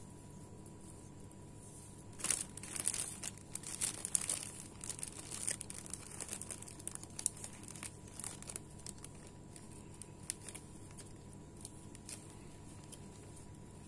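Thin clear plastic bags crinkling as hands handle them and tie curling ribbon around their necks. The rustling starts about two seconds in, is busiest for the next few seconds, then thins to scattered light crackles.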